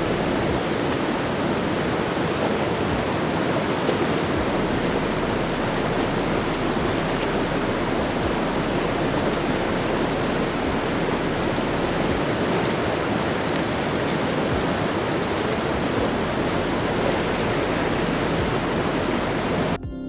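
Shallow river flowing steadily over rocks and gravel, an even rush of water.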